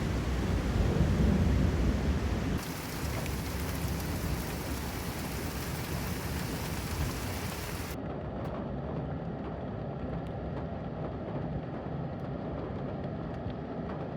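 Thunderstorm: a low thunder rumble in the first couple of seconds over steady rain. The rain goes on without the rumble, and after about eight seconds it turns duller, with faint scattered ticks of drops.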